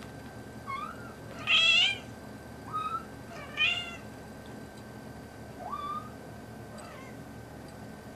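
Young kittens, about four and a half weeks old, mewing in a run of about six short high calls, the loudest about a second and a half and three and a half seconds in, the others fainter, one near the end rising in pitch.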